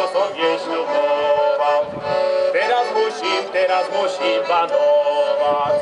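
Folk violin and accordion playing an instrumental passage of a Slovak folk song, a quick ornamented melody over held notes.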